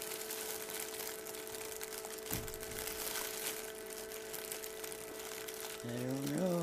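Plastic glove crinkling softly as a gloved hand turns an egg against a candling light, over a steady electrical hum, with a soft knock about two seconds in.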